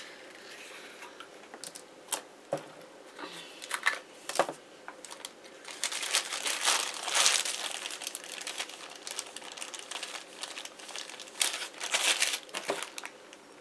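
Plastic bag crinkling and rustling as it is handled, in irregular bursts that are busiest around the middle and again near the end, with a few light clicks early on.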